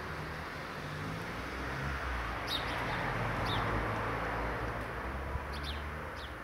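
A rushing noise that swells and then fades, with a low rumble beneath it and a few short bird chirps over it from about halfway through.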